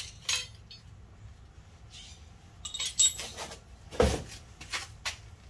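Unpacking sounds: small items being handled and set down, with a few brief clinks around the middle and a knock about four seconds in, amid rustling.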